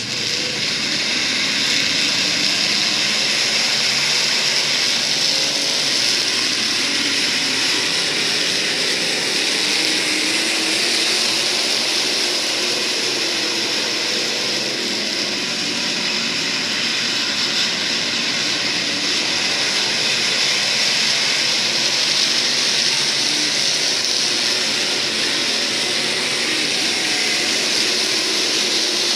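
A field of IMCA SportMod race cars running laps on a dirt oval, their V8 engines at speed merging into one steady, loud engine noise with no single car standing out.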